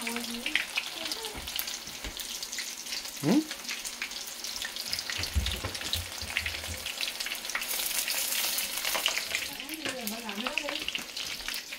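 Food frying in hot oil in a pan, a steady crackling sizzle with many small pops, swelling to a louder hiss about eight seconds in.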